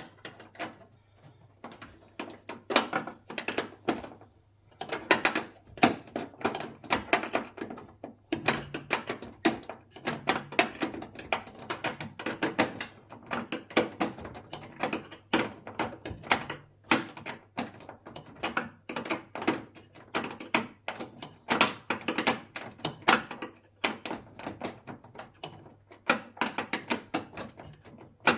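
Small metal spanners clicking and ticking against a nut and bolt in quick, irregular runs as a fixing is worked in a tight spot, with short pauses between bursts. A faint steady low hum runs underneath.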